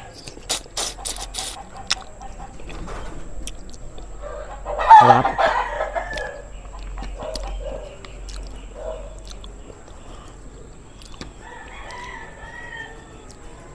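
A rooster crowing once, about five seconds in; this is the loudest sound. A few sharp clicks come near the start.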